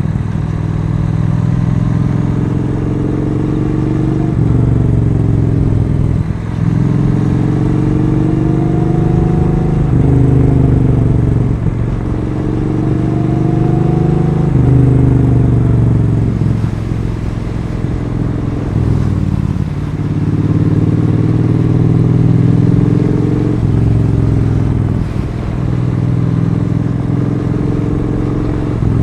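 Triumph Street Twin 900's parallel-twin engine under way, revving up and dropping back again and again as the rider accelerates and shifts through the gears.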